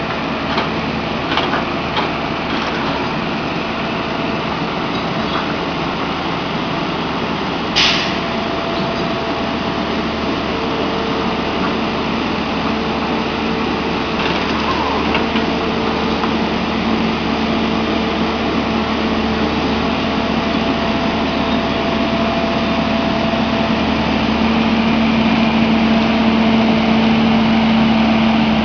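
A track renewal train's engine and hydraulic machinery run steadily with a constant hum and whine. A few short sharp knocks come near the start, and a louder one about eight seconds in. The machine noise grows a little louder near the end.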